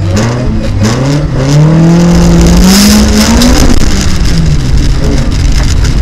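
Rallycross car's engine, heard from inside the car, revving up steadily under acceleration for about three seconds, then easing off. A loud low rumble follows as the car runs over the rough dirt section.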